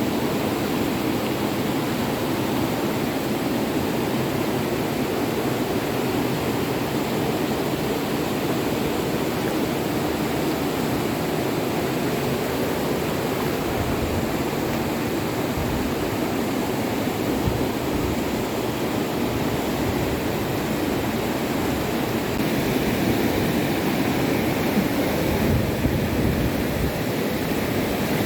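Steady rush of flowing floodwater, a continuous even wash of water noise.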